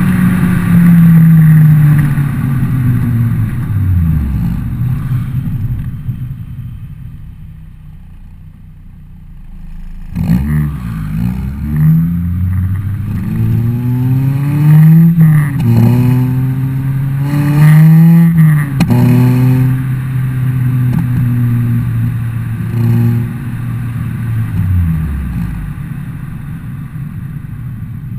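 Honda Civic EP3 Type R four-cylinder through a decatted Fujitsubo RM-01A cat-back exhaust: the revs fall away, then after a lull the engine is revved up and down sharply several times. Short pops come from the exhaust on lift-off as it spits flames, twice within a few seconds, before the revs drop back.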